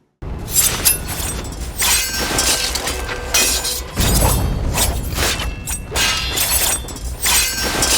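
Swords clashing in a staged drama fight: a fast, irregular run of sharp metallic strikes and impacts, with a heavier thump about four seconds in.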